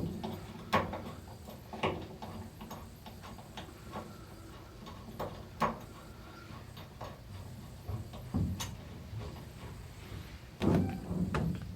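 Scattered clicks and knocks of hand tools and metal parts being handled and fitted under a car, with a louder stretch of knocking and rumbling near the end.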